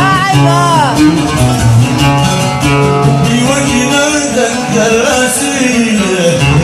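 Yemeni song music with plucked strings carrying the melody, in a passage with few or no sung words; a bending melodic line about a second in.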